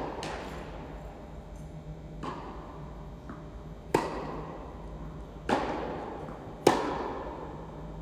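Tennis ball struck by rackets and bouncing during a baseline rally: a series of sharp pops every second or so, each ringing out in the echo of a large indoor hall.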